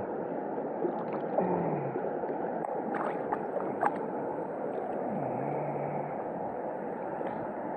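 Steady rush of river water flowing past, an even, continuous hiss.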